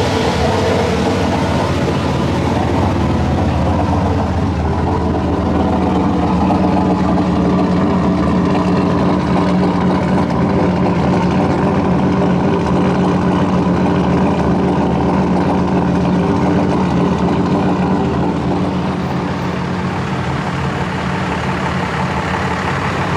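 Car engine idling steadily, loud and close, its note easing slightly about eighteen seconds in.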